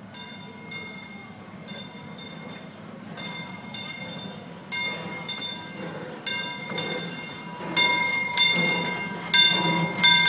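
Bell of the 1894 Baldwin steam locomotive Fred Gurley ringing steadily, about one stroke every 0.7 s, growing louder as the locomotive pulls in alongside, over a low rumble of the train that also rises toward the end.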